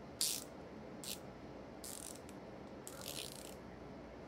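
Ratcheting screwdriver clicking in four short, high-pitched bursts as it is worked back and forth.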